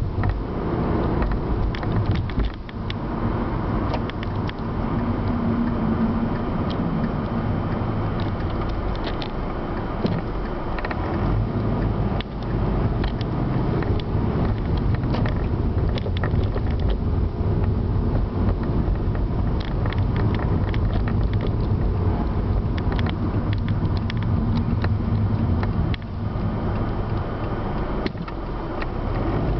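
Road and engine noise heard inside a moving car's cabin: a steady low rumble with scattered small clicks and rattles.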